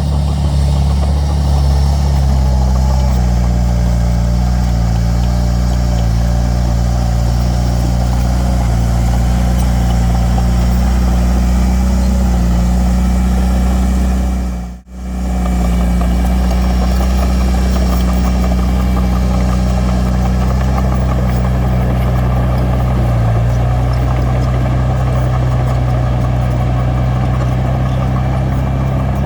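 Heavy diesel earthmoving engine running steadily at a constant speed, with a deep low drone. About fifteen seconds in, the sound drops out briefly and then comes straight back.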